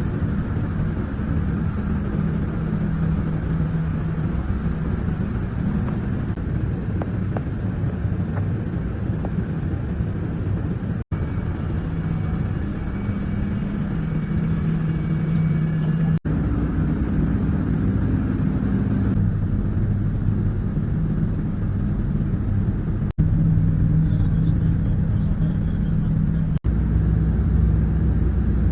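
Steady low hum and rumble of running machinery, broken four times by brief drop-outs, after each of which the hum carries on slightly changed.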